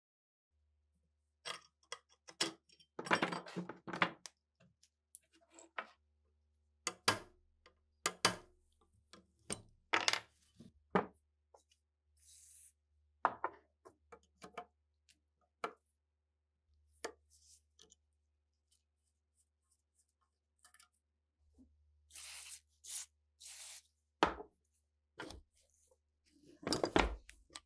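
Rusted steel parts of an old Degtyaryov machine gun being pried apart and handled on a workbench: scattered sharp clinks, knocks and scrapes of corroded metal on metal and on the bench, including pliers gripping a rusted part. There is a stretch of rough scraping about three-quarters of the way through and a quick cluster of rattling clinks near the end.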